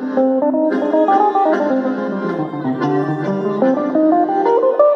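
Live acoustic chamber music led by a plucked guitar, with many overlapping notes. A low line steps downward about halfway through and climbs back up near the end.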